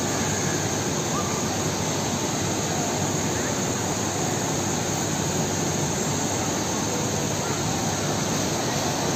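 Steady, even rushing roar of the snow play area's background noise, with faint distant voices.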